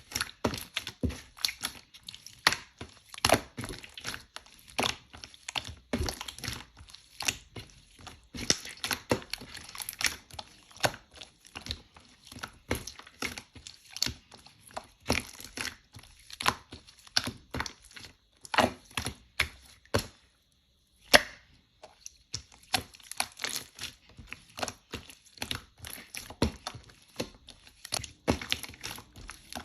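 Slime being pressed, poked and stretched by hand, giving a quick, uneven run of sharp clicking pops and crackles. There is a short pause a little after two-thirds of the way in, then one loud pop.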